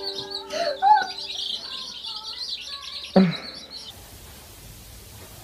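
A lapful of baby chicks peeping: a dense, steady chorus of short high cheeps that fades out about three seconds in, leaving faint hiss.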